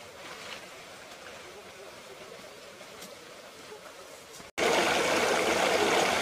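Stream water running, faint at first with a few light ticks. About four and a half seconds in the sound drops out for an instant and returns as a much louder, steady rush of flowing water.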